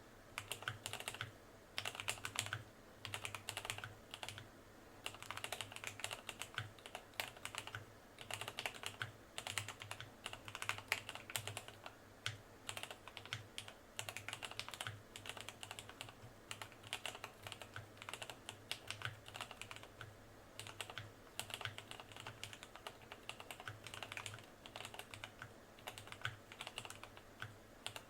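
Typing on a modded 1980s Cherry G80-3000 mechanical keyboard with lubed and filmed Cherry MX Black linear switches, mounted plateless over dampening foam, with PBT double-shot keycaps. Quick runs of keystrokes are broken by short pauses.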